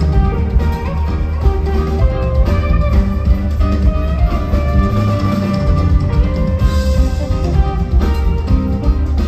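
Live band music with guitar to the fore over a heavy, steady bass and drums.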